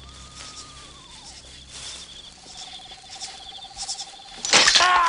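Crickets chirping steadily, with faint long tones beneath, one of them falling. About four and a half seconds in, a sudden loud burst starts a long, falling cry, much louder than everything before it.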